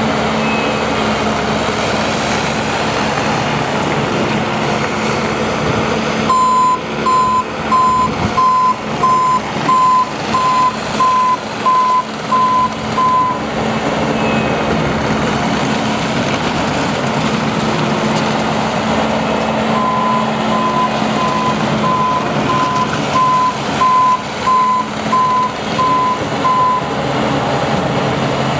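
Bobcat T590 skid steer's diesel engine running steadily, with its reverse alarm beeping twice in long runs of evenly spaced beeps, about one and a half a second, as the machine backs up.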